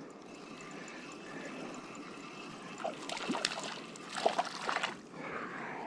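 Water trickling and splashing as a small caught trout is handled over the water, with a cluster of short splashes and clicks about three to five seconds in.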